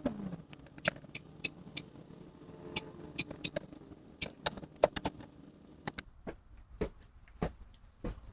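Scattered, irregular clicks, knocks and scrapes of someone doing yard clean-up outside, picked up by a doorbell camera's microphone.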